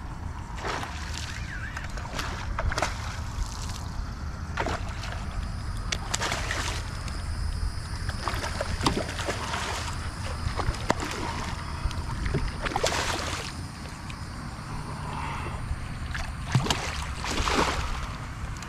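A hooked redfish splashing and thrashing at the surface beside a kayak, with water sloshing around the hull and landing net as it is brought in. Short splashes come every few seconds over a steady low rumble.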